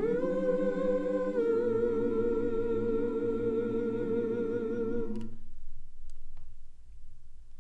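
Choir singing a sustained wordless 'ooh' chord with vibrato, moving to a new chord about a second in and cutting off together a little past halfway, followed by a short quiet gap with a few faint clicks.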